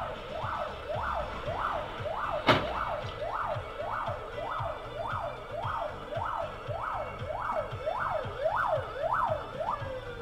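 Emergency vehicle siren heard from inside a car, sounding in quick rising-and-falling sweeps, a little under two a second. There is a sharp click about two and a half seconds in. Near the end the sweeps come faster, then the siren glides down as it winds off.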